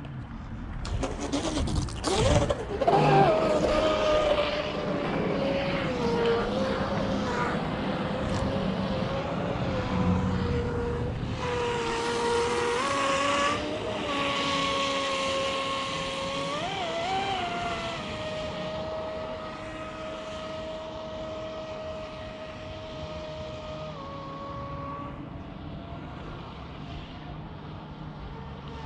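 Brushless electric motor of a Pro Boat Blackjack 42 8S RC catamaran running at full throttle, a high steady whine with some small pitch shifts over a hiss of spray. It is loudest a few seconds in and grows gradually fainter.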